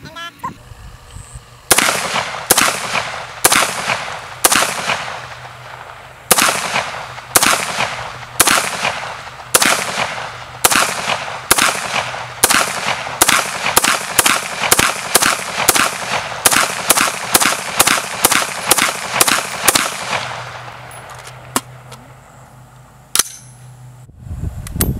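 Ruger AR556 5.56mm semi-automatic rifle fired in a long string of about thirty shots, each with a ringing echo. The shots come about one a second at first, then speed up to two or more a second before stopping.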